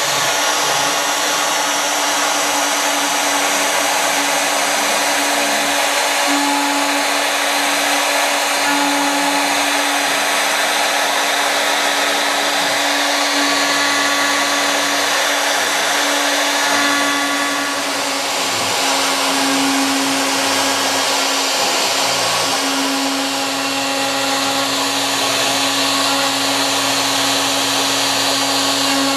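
CNC router spindle running steadily at high speed while its bit routes letters into a Spanish cedar board, a continuous whine with the cutting noise of the wood. The sound eases slightly a couple of times as the cut changes.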